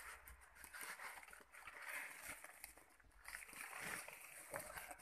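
Faint rustling and crinkling of a woven plastic sack as it is pulled down and rolled back from a heap of grain, with the loose grain shifting.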